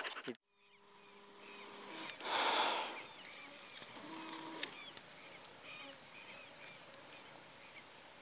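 A greyhound's panting breaks off in the first moment. Then comes faint open-field ambience with small birds chirping in the distance, and a brief rush of noise about two seconds in.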